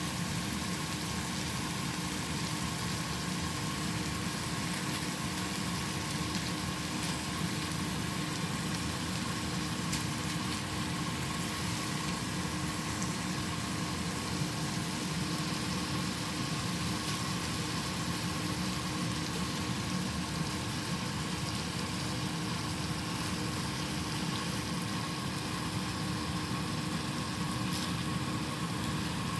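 Steady low mechanical hum with a faint constant tone, like a motor or engine running at idle.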